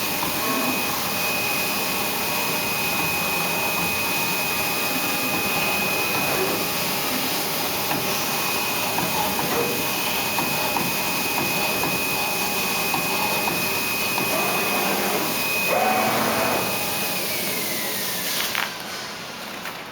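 SINA flatbed pattern-cutting plotter running: a steady rushing noise from its vacuum hold-down blower with a thin high whine on top. Near the end the whine slides down in pitch and the noise drops as the machine winds down.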